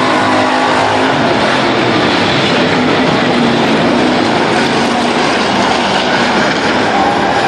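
Race car and truck engines running loud and steady around a track, their pitch drifting up and down as they speed up and slow.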